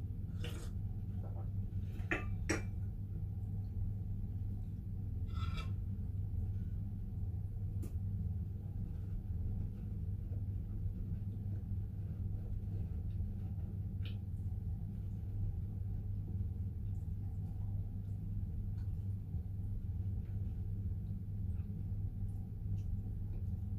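A few sharp clinks of a porcelain teacup and dishes, mostly in the first six seconds, over a steady low hum in a small room.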